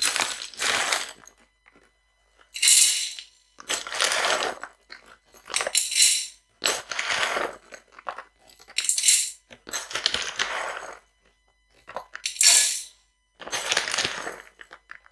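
Dried popcorn kernels poured from a plastic bag into the empty stainless-steel pot of a Bosch Cookit kitchen machine, rattling and clinking against the metal in a series of short pours, each lasting about a second.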